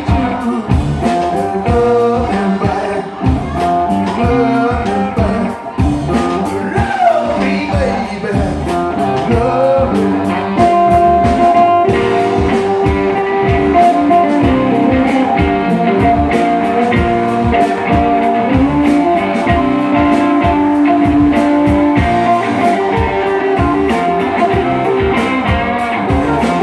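Live blues-rock band playing loudly: two electric guitars, electric bass and a drum kit keeping a steady beat, with bent guitar notes a few seconds in.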